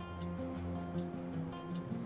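Background music with plucked guitar-like notes.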